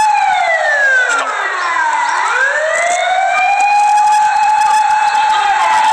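A siren wailing. Its tone holds high, drops slowly over about two seconds, sweeps back up and holds, then begins to fall again near the end.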